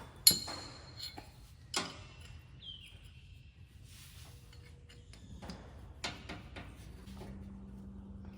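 Handling noises of metal tools and parts. A sharp metallic clink that rings briefly comes just after the start, then a few lighter knocks and clicks. A steady low hum comes in near the end.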